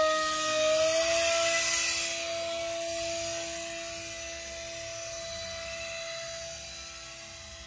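Electric motor and propeller of an Eclipson Helix 3D-printed RC flying wing whining at a steady pitch as it is hand-launched. The pitch steps up slightly about a second in, then the whine fades steadily as the plane flies away.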